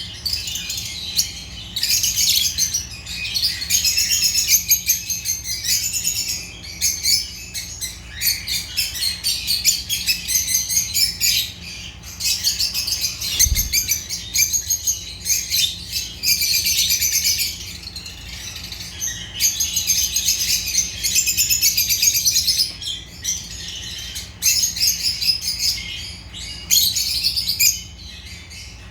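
Lovebirds chirping: rapid, high-pitched twittering in bouts of a few seconds, broken by short pauses.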